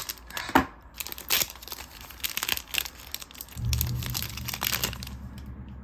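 Plastic packaging of a pack of card sleeves crinkling and tearing as it is opened by hand, in quick irregular crackles. A steady low hum comes in about three and a half seconds in.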